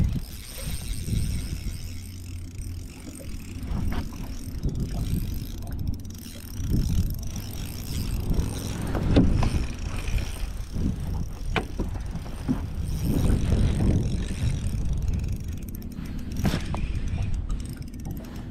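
Fishing reel being cranked, its gears ticking as line is wound in, over a low, uneven rumble that swells and fades.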